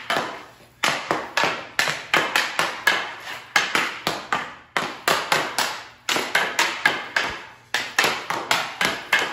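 Ice hockey stick blade clacking against a rubber puck on a bare concrete floor during fast stickhandling. Sharp knocks, about three a second, come in quick runs with short pauses and echo off the concrete walls.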